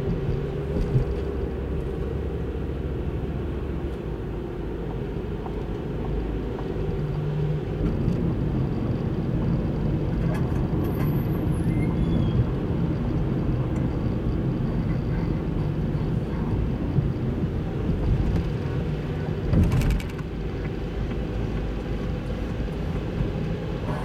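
Car driving on a wet road, heard from inside the cabin: steady engine hum and tyre noise. There is a short thump a few seconds before the end.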